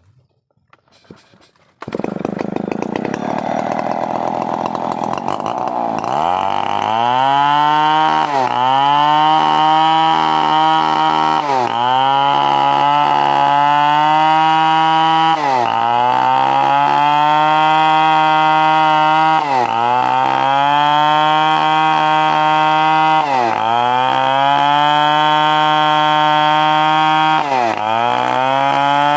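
Stihl 070 two-stroke chainsaw starting up loud about two seconds in, then running at high revs while sawing timber. Its pitch dips briefly and recovers about every four seconds.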